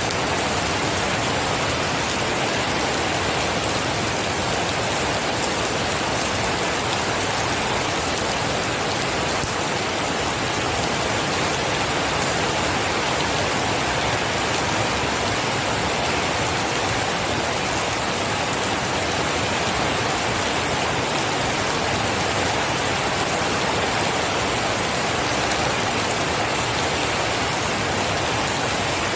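Steady rain falling, an even, unbroken hiss that does not change.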